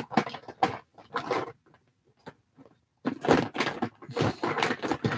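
Small hard-plastic toy pieces clicking and clattering against each other and a clear plastic storage bin as a hand rummages through them, in two bouts with a brief quiet pause between.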